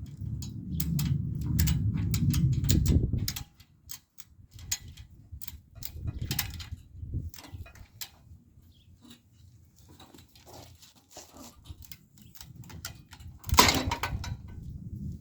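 Hand work on a ratchet strap and steel parts: irregular clicks and knocks, with a low rumble for the first three seconds and a louder clatter near the end.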